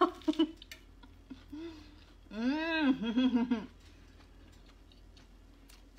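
A woman's closed-mouth 'mmm' of enjoyment while chewing a mouthful of food, a hum that rises and falls in pitch in two parts about two and a half seconds in. There is a short bite or mouth click at the very start.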